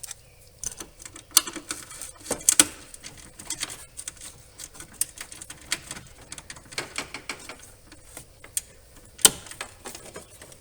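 Irregular clicking and metal tool clinks from a ratchet and socket working on a 10mm bolt that holds the fan control module, with a few louder clacks.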